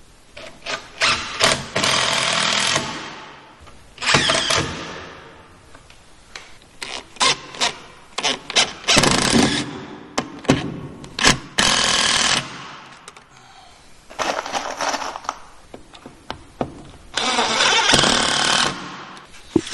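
Power driver with a long extension bit driving screws through a pocket door frame's metal floor plate into a wood subfloor, in about six runs of a second or two each, with short clicks between.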